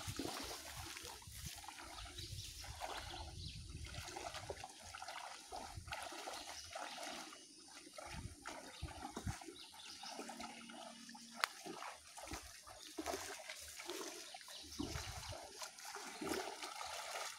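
Shallow muddy water sloshing and splashing around the legs of people wading through a drained swamp, with soft irregular knocks and one sharp click a little past the middle.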